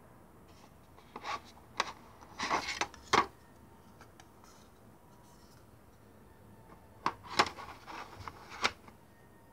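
Handling noise from a Samsung 850 EVO SSD: its casing clicks and scrapes against the box as it is picked up, turned over and set down. The sound comes in two bursts of short knocks and rubs, one about a second in and one about seven seconds in.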